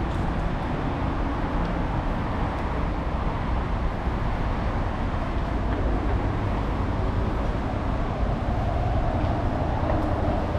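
Steady low rumble of passing vehicles.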